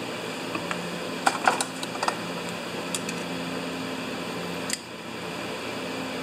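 Light metallic clicks and taps from handling a small-engine carburetor and a long screwdriver: a quick cluster a little over a second in, another click about three seconds in, and a sharper one just before five seconds. A steady low hum sits underneath.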